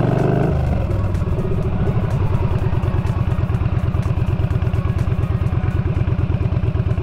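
Yamaha Bolt's air-cooled V-twin engine dropping off the throttle about half a second in, then idling with a steady, even beat.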